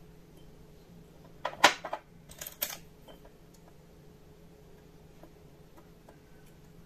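A small glass jar handled on a tabletop: a quick cluster of light clicks and knocks about a second and a half in, and a second short group just after, then only quiet handling over a faint steady hum.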